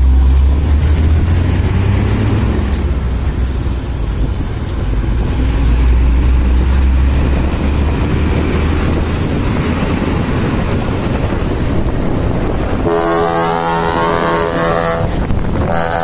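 Diesel dump truck passing close by with a heavy engine rumble, then about thirteen seconds in a multi-note trumpet air horn of the "kapal darat" (land ship) kind sounds a steady blast of about two seconds, with another blast starting at the very end.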